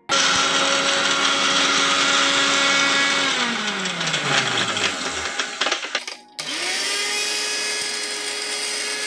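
Electric mixer grinder blending soaked cashews, garlic, lemon juice and water in its steel jar. The motor starts suddenly and runs at a steady pitch, winds down with falling pitch and some clicking about three seconds in, then starts again just after six seconds and spins up to a steady pitch.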